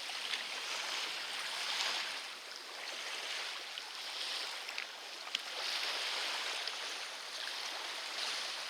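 Water washing and splashing, swelling and easing about every two seconds like small waves, with a few faint clicks.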